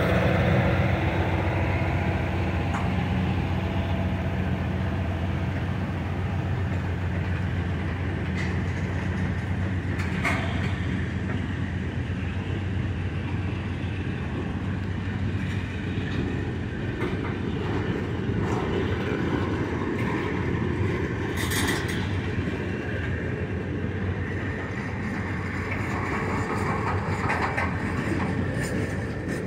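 Long welded-rail train's flatcars rolling past, steel wheels rumbling and clicking over the track, with a few sharper clanks. A low steady drone underlies the first dozen seconds, then fades.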